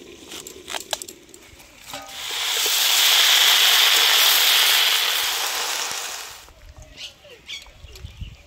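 A few sharp knife clicks, then loud sizzling of chopped vegetables frying in hot oil in an iron wok, which swells in and fades out over about four seconds; near the end, clicks and scraping as a spatula moves cooked curry from the wok into a steel bowl.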